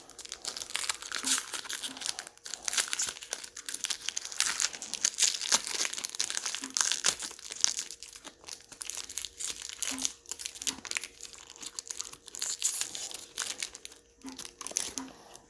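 Foil wrapper of a Pokémon booster pack crinkling and crackling as it is handled and torn open by hand.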